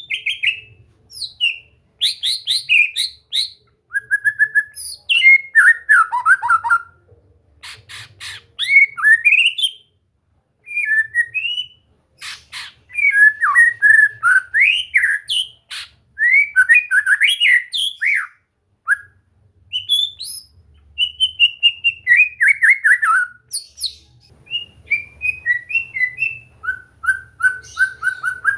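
White-rumped shama (murai batu) singing: a varied run of rising and falling whistled phrases mixed with quick rattling clicks, broken by short pauses.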